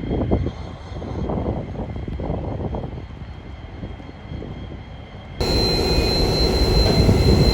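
Endeavour diesel railcar rumbling as it pulls into the platform. About five seconds in the sound jumps louder, with a steady high whine over the engine rumble.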